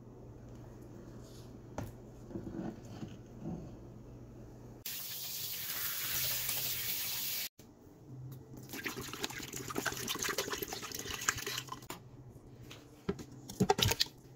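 Kitchen tap water running steadily, then splashing over frozen beef oxtails as they are rinsed. A few sharp knocks come near the end.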